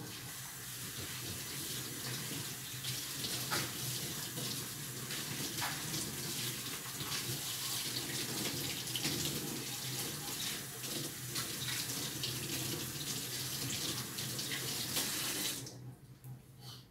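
Water running steadily from a kitchen tap as a metal pot lid is rinsed under it; the tap shuts off near the end.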